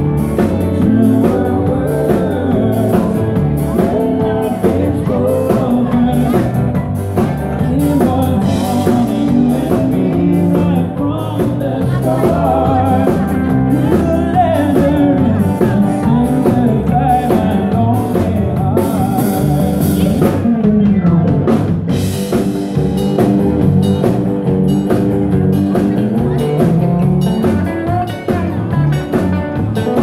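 Live rock-and-roll band playing a dance number: drum kit keeping a steady beat under electric guitar, with singing.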